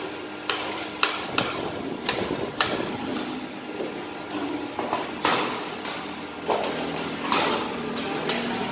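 Thin stainless steel sheet clanking as it is handled and positioned in a press brake: a string of sharp metallic knocks, each with a short ring.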